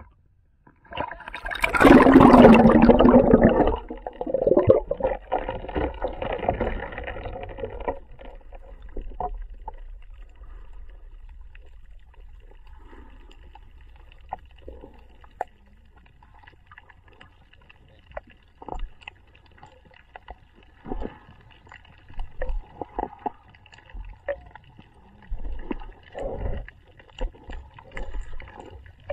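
Water splashing over the camera as it plunges beneath the sea surface, a loud rush about a second in lasting a couple of seconds. After that, muffled underwater sound: a low rumble with scattered knocks and pops.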